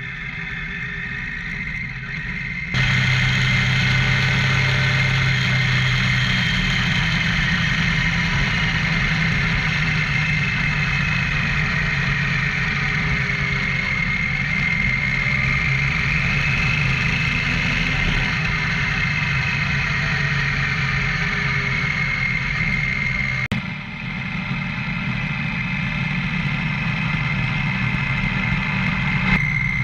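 Adventure motorcycle riding along a gravel track: the engine runs steadily under way, mixed with road and wind noise. The sound jumps abruptly twice, a few seconds in and again about three-quarters of the way through, where clips are spliced.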